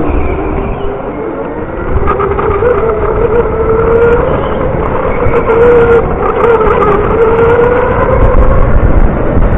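Electric indoor go-kart motor whining, its pitch rising and falling repeatedly as the kart speeds up and slows through the corners, over a steady low rumble.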